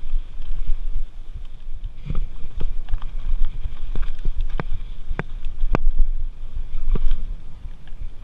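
Mountain bike riding over dirt singletrack: a steady low rumble of wind and tyres, broken by several sharp clicks and knocks as the bike rattles over bumps.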